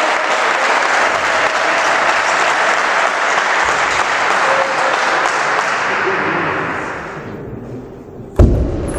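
Spectators applauding after a table tennis point, the applause dying away about seven seconds in. Near the end comes a single loud thump.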